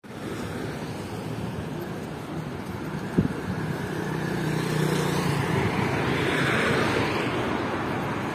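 City street traffic noise, steady, with a sharp knock about three seconds in and a vehicle passing, louder, around two-thirds of the way through.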